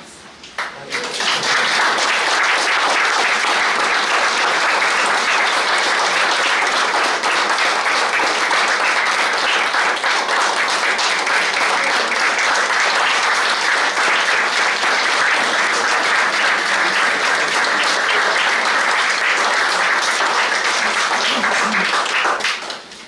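A congregation clapping in sustained applause, beginning about a second in and dying away shortly before the end.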